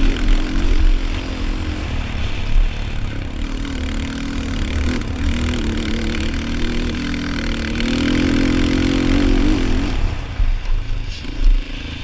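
Yamaha Raptor 250 quad's air-cooled single-cylinder four-stroke engine running under throttle, its pitch wavering and climbing, then dropping away about ten seconds in as the throttle is eased off.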